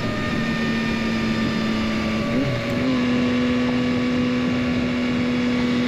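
Yamaha XSR900's CP3 inline three-cylinder engine running at a steady cruise under the rider, with wind and road noise. About two and a half seconds in the pitch dips briefly, then holds steady a little higher.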